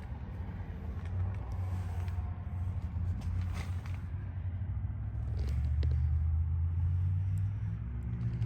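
2025 Toyota Prius Limited heard while driving: a steady low rumble of road and drivetrain noise, growing louder about halfway through.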